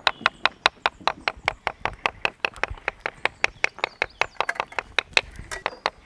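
Fast, even tapping on a fresh willow stick, about five light knocks a second, bruising the bark all over so that it separates from the inner wood.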